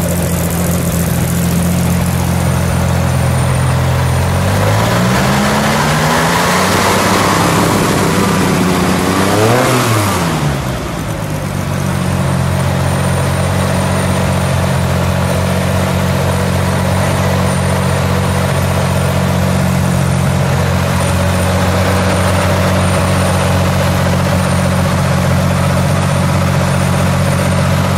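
Air-cooled flat-six of a 1966 Yenko Stinger Corvair running at idle. The revs rise slowly about five seconds in, blip sharply near ten seconds, then drop back to a steady idle.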